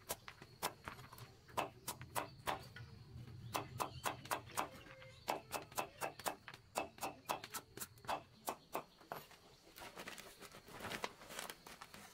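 A large knife chopping papaya on a wooden block: a run of sharp knocks of the blade hitting the wood, irregular, roughly two to four a second.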